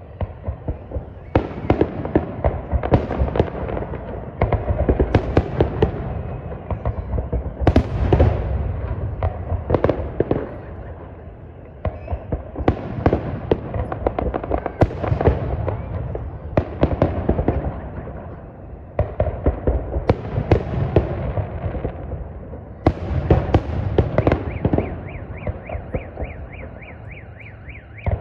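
Fireworks salute: volleys of aerial shells bursting, many sharp bangs in quick succession over a low rumble, coming in waves with short lulls between them.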